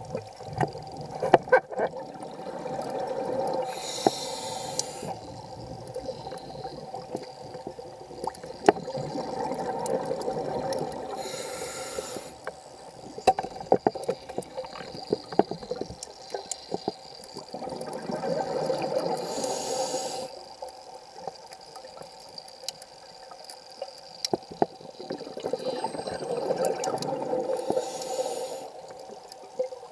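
Scuba diver's breathing through a regulator, heard underwater: a rush of exhaled bubbles and a short high regulator hiss that come round about every eight seconds, with scattered sharp clicks in between.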